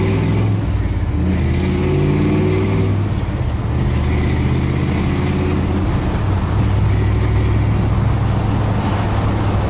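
The 1981 Dodge Ram D-150's 360 V8 pulling under acceleration, heard from inside the cab. The pitch climbs, breaks about three seconds in at a gear change of the four-speed manual, climbs again, then settles to a steady cruise.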